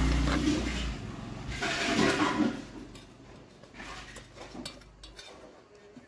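Light metal clinks and scrapes from a mixer jar's blade assembly being turned and tightened by hand inside the stainless steel jar, with a louder burst of noise about two seconds in.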